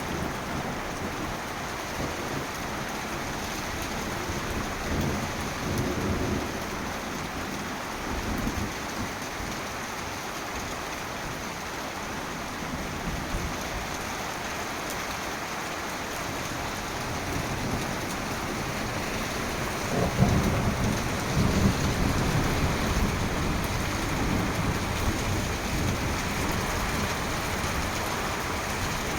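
Heavy rain falling steadily, with thunder rumbling several times. The loudest roll starts about two-thirds of the way through and lasts several seconds.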